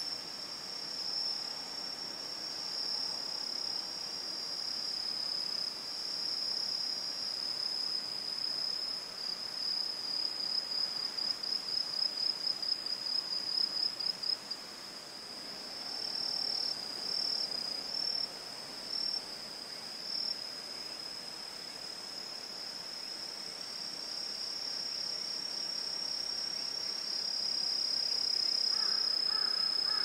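Forest ambience of insects trilling, one continuous high-pitched song, with a rapid pulsing stretch in the middle.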